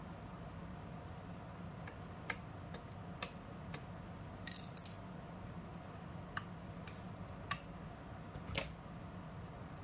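Scattered light clicks and taps, about eight to ten spread over several seconds with a quick double click near the middle, over a steady low hum: small parts of a mini PC being handled, typical of opening its case and working its screws.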